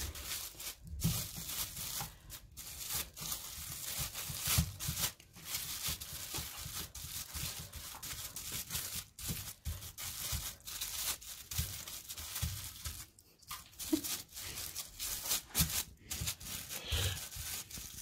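Clear plastic sheets crinkling and rustling irregularly as hands press and flatten a ball of minced chicken between them into a round burger patty, with soft low thumps now and then from the pressing hands.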